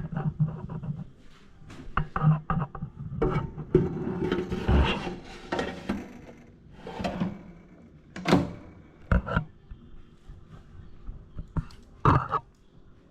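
Irregular knocks, clunks and scraping as pieces of marinated chicken are set into a Philips air fryer's basket and the basket is handled.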